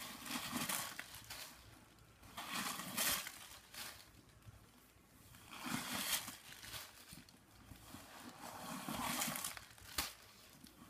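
Tissue paper rustling and crinkling in about four bursts as wads of stuffing are pulled out of a handbag, with a sharp click near the end.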